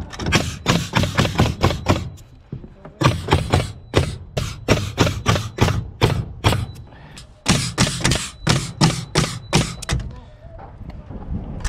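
Nail gun firing nails in quick runs of about three to four shots a second, fastening plywood roof sheathing to the trusses. There are three runs, with short breaks about two and a half seconds in and about seven seconds in.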